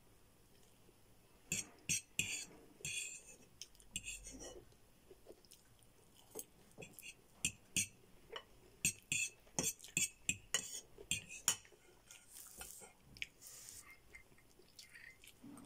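Metal fork clinking and scraping against a ceramic bowl of spaghetti, in irregular runs of sharp clicks.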